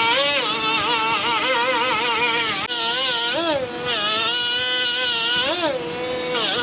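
Background music carried by a buzzy lead melody whose pitch wavers and glides, unbroken throughout.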